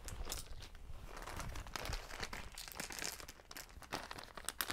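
Packaging crinkling and rustling in irregular crackles as a pack of small craft buttons is handled.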